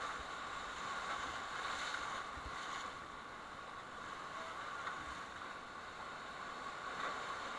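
Whitewater rapids rushing around an inflatable raft: a steady, even wash of moving water.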